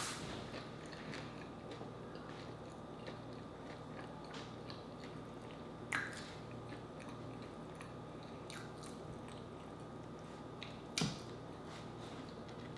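Close-miked mouth sounds of a person chewing food, with soft wet clicks. There are two sharper clicks about 6 and 11 seconds in, over a faint steady hum.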